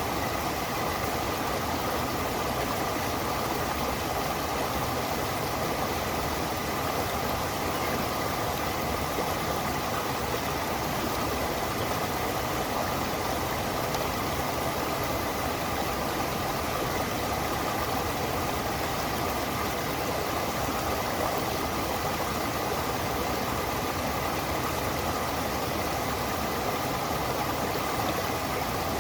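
Stream water running over rocks: a steady, unbroken rush.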